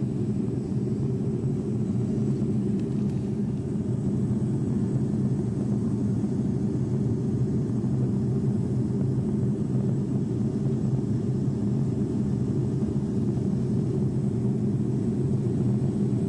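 Steady low drone of an airliner's engines and rushing airflow heard from inside the cabin, picked up on a mobile phone.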